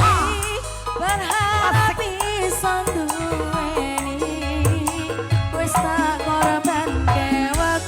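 Live Javanese dangdut-style band music: a regular hand-drum beat under a wavering, ornamented lead melody, with no words sung in these seconds.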